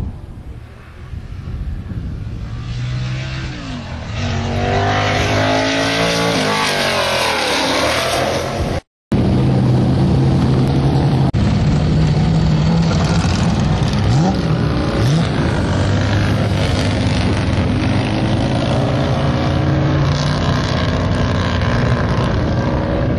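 Open-wheel race car's engine revving hard as the car climbs past, its pitch rising and dropping with each gear change. The sound breaks off for a moment about nine seconds in, then the engine is heard again working steadily up the hill, with further rising sweeps as it changes gear.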